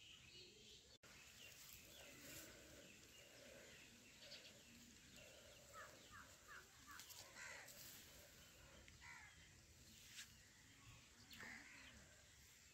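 Near silence: faint outdoor rural ambience with scattered faint bird chirps, including a quick run of four chirps about six seconds in.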